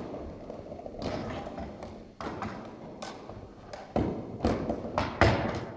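Floorball stick knocking a plastic floorball and the ball bouncing on a wooden sports-hall floor, with sneaker footsteps: a run of uneven taps and thuds that echo in the hall, the loudest coming about four to five seconds in.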